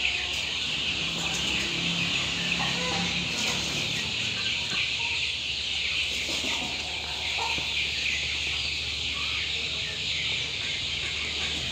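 Chickens clucking in the background, short scattered calls over a steady high-pitched hiss.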